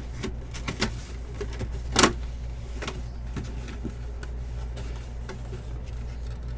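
Cardboard box being opened by hand: flaps and packaging handled with scattered rustles and clicks, and one sharp crack of cardboard about two seconds in, over a steady low hum.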